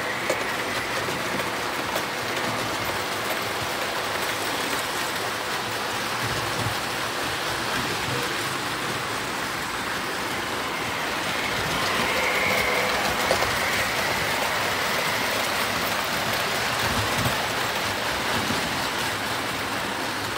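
Toy electric trains running around tinplate track loops: a steady rumble and rattle of metal wheels on the rails with a faint motor whine, a little louder about halfway through.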